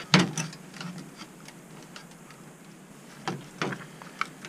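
Sharp plastic clicks and light rattling of PC power-supply cables and connectors being unplugged and handled: one loud click just after the start, quiet handling, then a few more clicks a little past three seconds in.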